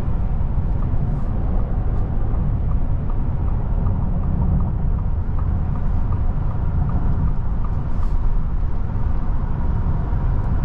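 Ford F-150 Lightning electric pickup driving at highway speed with a boat trailer in tow: a steady low rumble of tyre and road noise.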